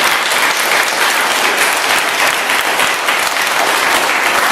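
Audience of children and adults applauding steadily, a dense even clapping at a curtain call.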